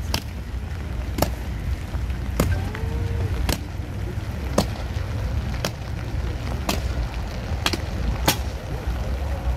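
Ceremonial slow march of an honour guard: heavy boot heels stamping on wet granite paving, one sharp strike about every second, evenly spaced. A steady low rumble runs underneath.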